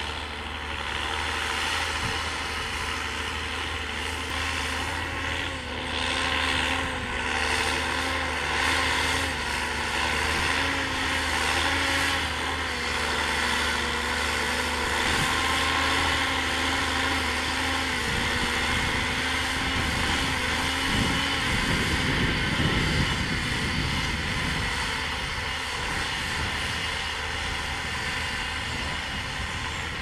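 John Deere tractor's diesel engine running steadily under load as it pulls a disc harrow through tilled soil: a continuous engine drone that shifts a little past two-thirds of the way through.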